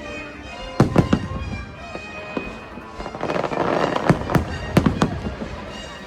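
Fireworks bursting with sharp bangs, two about a second in and a quick cluster from about four seconds, over a crackling hiss, with music playing underneath.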